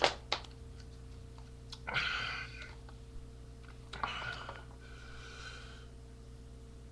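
Two sharp clicks, then two short hissing breaths about two seconds apart, with a fainter one trailing after the second.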